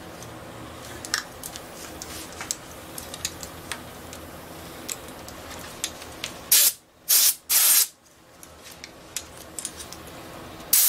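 Compressed-air blow gun with a thin brass nozzle pushed under the end of a foam handlebar grip, letting out three short, loud blasts of hissing air a little past halfway and one more near the end; the air under the foam lets the grip slide onto the bar. Before the blasts there are only a few light clicks from handling.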